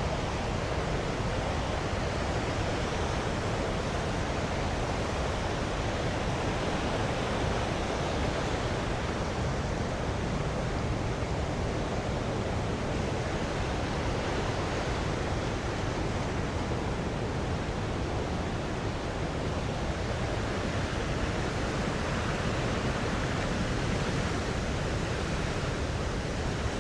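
Waterfall and river rapids rushing: a steady, unbroken noise of fast-flowing water.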